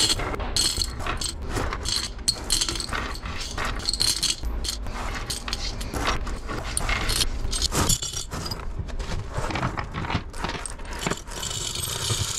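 Loose metal washers and nuts clinking and jangling in an irregular patter as they are raked and sorted by hand on a rubber bench mat. Near the end the clinking merges into a continuous rattle as the mat is folded and the washers slide together into its crease.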